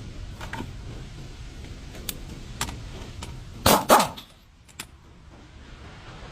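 Metal tools and parts knocking during repair work, a few light clicks and then two loud clanks close together, over a low steady hum that drops away just after the clanks.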